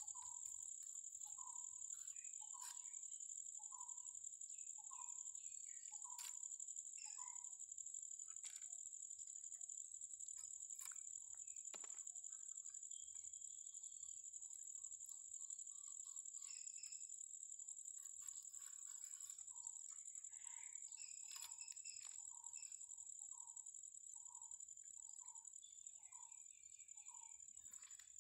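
Steady high-pitched insect drone, with a bird repeating a short note about every two-thirds of a second for the first several seconds and again from about two-thirds of the way in. Scattered faint clicks.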